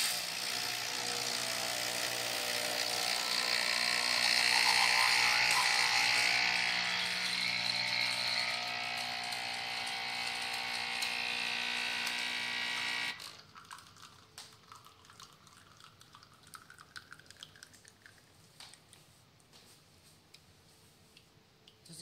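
Nespresso Pixie capsule espresso machine's pump buzzing steadily with a hissing edge while it forces water through the capsule and brews coffee into the cup; the buzz cuts off suddenly about 13 seconds in, leaving only faint ticks.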